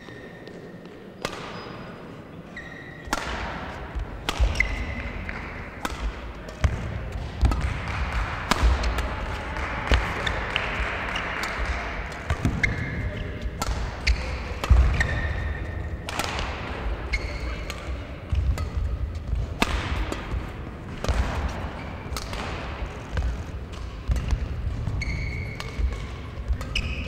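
A badminton rally, starting about three seconds in: racket strikes on the shuttlecock at irregular intervals over heavy footfalls thudding on the court mat, with brief shoe squeaks.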